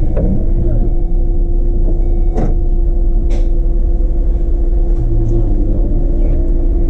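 Solaris Urbino 18 articulated city bus on the move, heard from the driver's cab: a steady low rumble of engine and road with a steady whine over it. A few sharp knocks and rattles break in, the loudest about two and a half seconds in.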